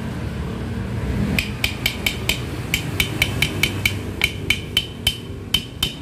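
Hammer tapping repeatedly on the seized connecting rod of an electric demolition hammer, each blow a sharp metallic clink with a short ring. There are about twenty blows in quick runs of three to five, beginning a little over a second in. The rod is being knocked loose after seizing on a dried-out needle bearing.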